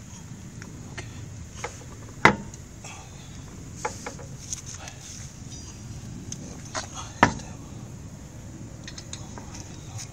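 Car wheel being fitted back onto the hub studs with its lug nuts: scattered metallic clicks and clinks, with two sharp knocks about two and seven seconds in.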